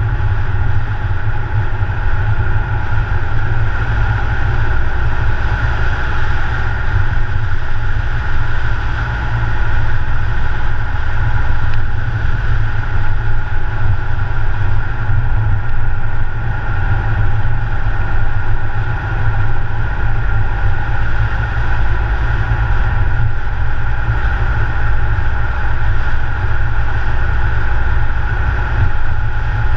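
A car driving steadily along a road: a continuous deep rumble of engine and tyres, with no sharp events.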